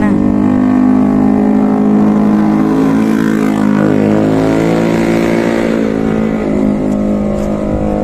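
An engine running steadily, its pitch shifting slightly around the middle.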